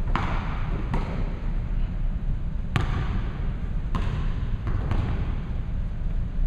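A basketball being dribbled on a hardwood gym floor, with about five bounces at uneven spacing.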